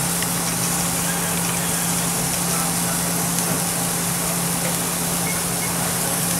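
Steady food-stall kitchen background noise: an even hiss with a constant low hum underneath, unchanging throughout.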